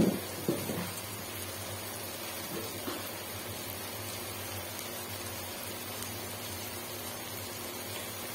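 Ridge gourd slices cooking in a wok, a steady sizzling hiss like light rain as they soften in their own moisture. A few soft knocks come in the first second.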